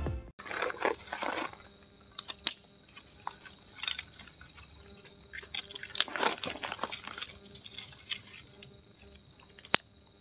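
Dry twigs and sticks rustling and crunching irregularly as they are handled and laid for a campfire, with a few sharp snaps, one near the end.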